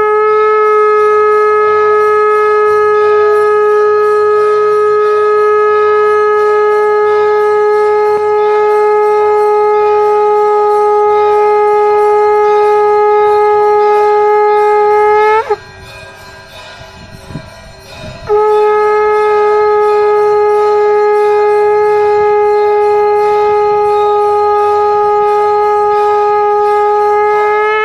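Conch shell (shankha) blown in two long, steady blasts, each held on a single pitch with a quick upward flick as it ends. The first lasts about fifteen seconds; after a short pause the second lasts about nine seconds.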